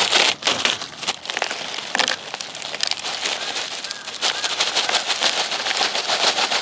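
Paper packet of Korean army hardtack (geonbbang) crinkling as it is handled and opened, then, about four seconds in, the small dry biscuits poured into a plastic bowl: a dense, fast rattle of pieces clattering into it.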